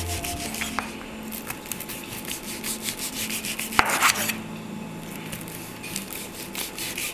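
A large kitchen knife saws back and forth through a firm, chilled rolled pork belly on a wooden cutting board: a run of quick rasping strokes, with the blade meeting the board. The strongest stroke comes about four seconds in.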